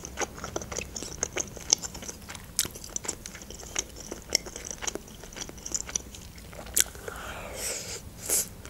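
Close-miked chewing: a person eating with the mouth closed, making irregular wet clicks and smacks, with a few louder ones near the end.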